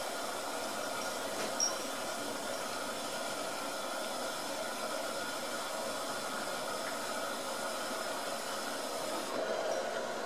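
Steady background hiss with no distinct events.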